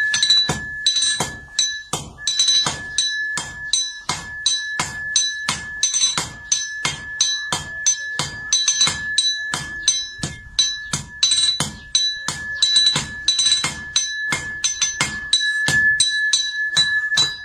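Rapid sharp clinking strikes, about three to four a second, over a steady high ringing tone, with a bell-like, musical character.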